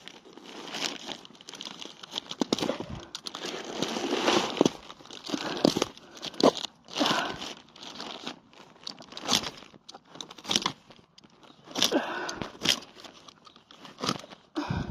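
A sharp knife sawing and slicing through trampoline material, in a run of irregular tearing, crinkling strokes.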